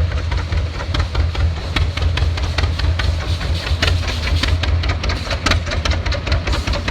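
Old engine running steadily, a low rumble with rapid, irregular clattering and ticking over it.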